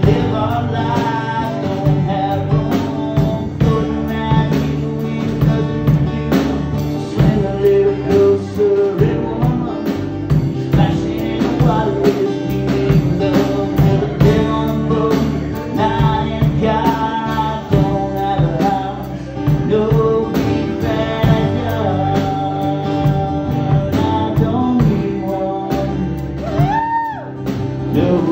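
A man singing to his own strummed acoustic guitar, with the strums keeping a steady rhythm under the voice.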